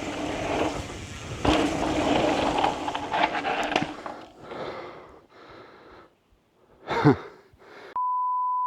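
Rolling, rattling noise with scattered clicks for about four seconds, fading out. About seven seconds in a short voice sound falls in pitch, and near the end a steady one-tone censor bleep cuts in.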